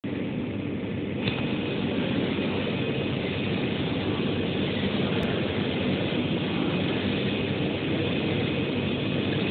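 Yueda YD-2513 UV flatbed printer running as its print carriage sweeps back and forth over the bed: a steady mechanical whir, heaviest low down, with a faint high whine. The sound grows brighter about a second in.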